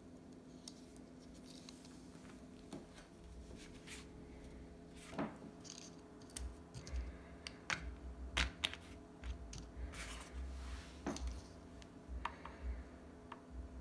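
Faint handling sounds: scattered light clicks, taps and rustles as a die-cast toy car and small plastic rocket pieces are handled and set down on a cloth mat and a sheet of card is moved, with a few dull bumps.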